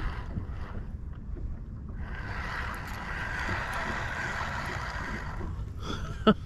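Fishing reel cranked for about three and a half seconds as the line is reeled in after a missed bite, over a low rumble of wind on the microphone.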